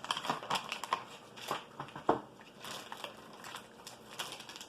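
Plastic MRE ration packets being handled and set down: irregular crinkling and crackling with a few sharp clicks, the sharpest about two seconds in.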